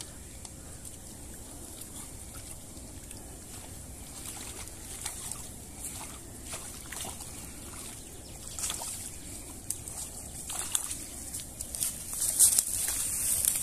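Pond water sloshing and splashing as a fishing net full of tilapia is hauled through the shallows onto the bank. The splashes and slaps come thicker and louder over the last few seconds.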